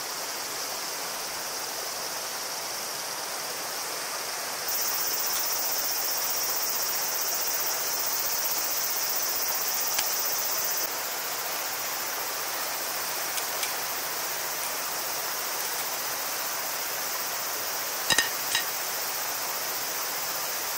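Steady high-pitched chorus of insects over the soft rush of a river. A couple of sharp clicks come near the end.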